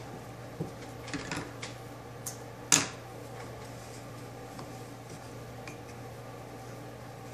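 Small taps and knocks of hands working yarn around the wooden pegs of a dye board, with one louder sharp knock a little under three seconds in. A steady low hum runs underneath.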